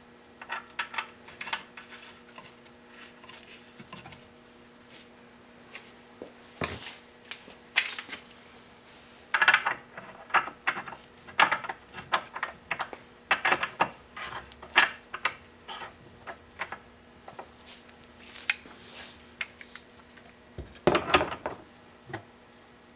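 Scattered metallic clinks, clicks and rattles of hand tools and a threaded fitting being handled and worked with a socket and torque wrench. A faint steady hum runs underneath.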